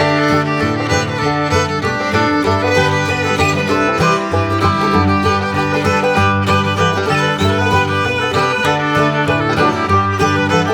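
Instrumental background music with fiddle and plucked strings over a steady beat.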